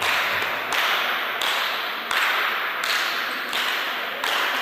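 Spectators clapping in a steady rhythm, about three claps every two seconds, each clap echoing in a large sports hall.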